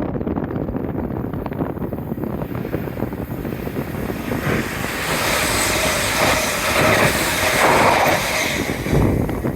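A passenger train passing at speed on a main line, with wind on the microphone. Its rushing noise builds from about four seconds in and is loudest near the end.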